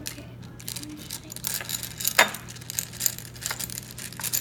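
Handling noise: close rustling and scattered light clicks, with one sharp click about two seconds in, over a steady low hum.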